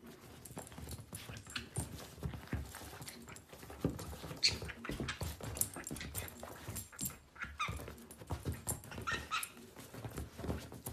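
A small dog playing with a green-cheeked conure on a leather couch: irregular scuffling and tapping of paws and bodies on the leather, with a few short high squeaks.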